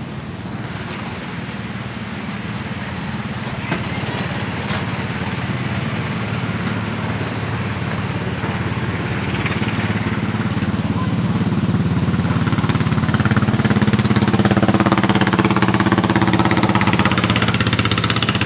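An engine running with a fast, even pulsing beat, growing steadily louder.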